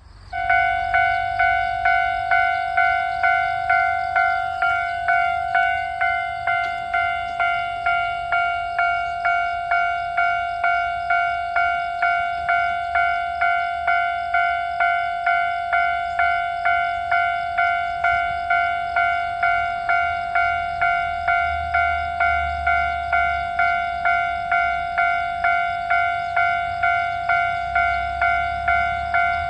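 Railroad crossing warning bell ringing in a steady run of strikes, a little under two a second, each one dying away before the next; it starts just after the beginning.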